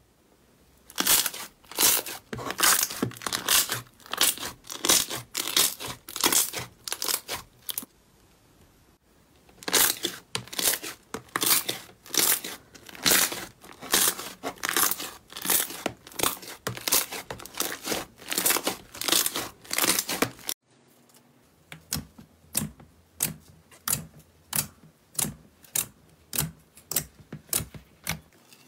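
Slime pressed and squeezed by hand in a plastic tub, giving quick runs of sharp sticky pops and crackles as trapped air bursts out. The crackling breaks off briefly about eight seconds in, then resumes. After an abrupt cut about twenty seconds in, a clear glitter slime gives slower, evenly spaced pops, about one or two a second.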